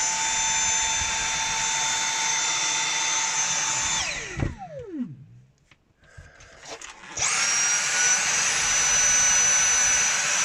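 Dyson V7 Animal cordless vacuum cleaner's motor run twice: a steady high whine for about four seconds that winds down with a falling pitch, a pause with a few clicks, then a second run at a higher pitch and a little louder, the first in economy mode and the second in maximum suction mode.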